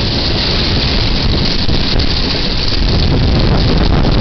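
Storm wind buffeting an outdoor security camera's microphone, with heavy wind-driven rain: a loud, steady rushing noise.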